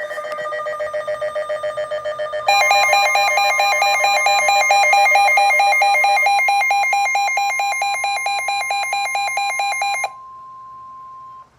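Electronic alert tone beeping rapidly, about five pulses a second, that changes pitch and gets louder about two and a half seconds in. It cuts off about ten seconds in, leaving a faint steady tone for a second and a half. It is the attention signal opening an Emergency Alert System severe thunderstorm warning.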